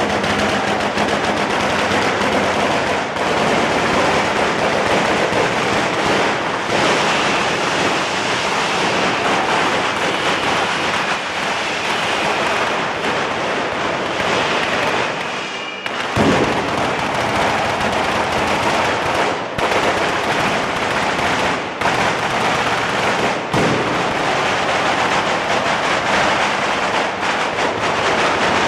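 Fireworks mounted on the Scoppio del Carro cart going off in a dense, rapid, unbroken string of crackles and bangs. About sixteen seconds in, the sound dips briefly and then a single sharp, louder bang breaks through.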